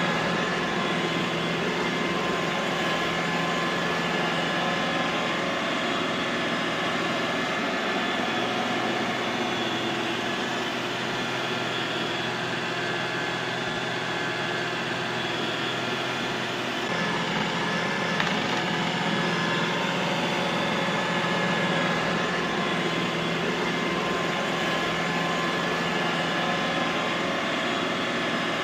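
Robot vacuum cleaner running steadily: an even motor whir with a few thin whining tones over a low hum, its tone shifting slightly a little past halfway.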